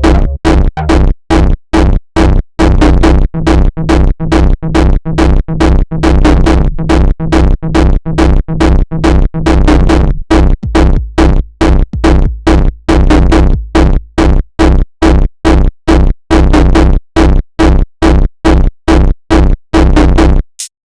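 Homemade jumpstyle electronic beat: a heavy, bass-laden drum-machine kick and synth chopped into a fast, steady pulse, stopping abruptly near the end.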